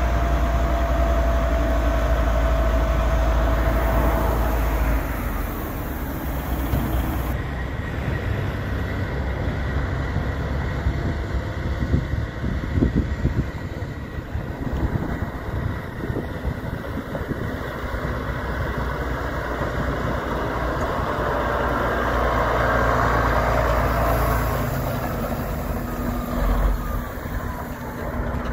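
Diesel engine of a 1993 Ford L9000 silage truck running as the truck pulls off and drives past.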